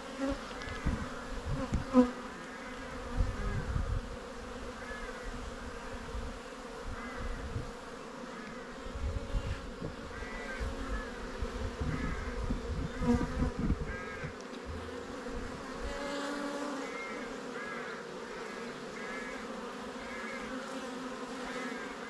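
Honeybees buzzing around an open hive: a steady hum of the colony, with single bees flying close past, each buzz sweeping up and down in pitch. A sharp knock about two seconds in.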